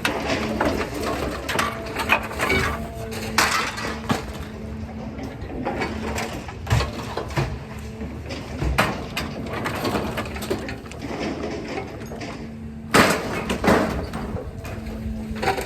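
Scrap metal being handled and thrown down, making a string of irregular clanks and crashes over a steady low hum.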